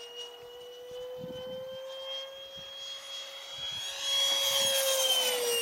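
Electric ducted fan of a model F-22 Raptor jet (Wemotec Midi Fan driven by a Mega brushless motor) whining steadily as the model flies. The whine climbs slightly in pitch and gets louder with a rushing hiss as the jet comes in low about four seconds in, then drops in pitch near the end as it passes.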